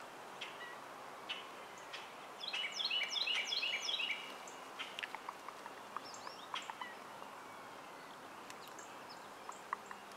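Wild birds singing in a spring deciduous woodland: a loud, rapid phrase of quick high descending notes for nearly two seconds, a couple of seconds in, followed by scattered short chirps and calls.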